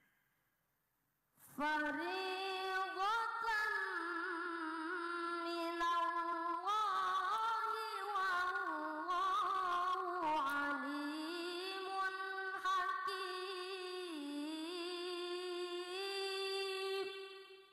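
A young boy's high voice reciting the Quran in melodic tilawah style: one long ornamented phrase, the pitch wavering and gliding, starting about a second and a half in and lasting some fifteen seconds.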